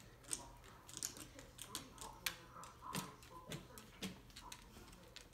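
A small dog pawing and scratching at a door: its claws give irregular sharp clicks and scrapes on the door and the hard floor.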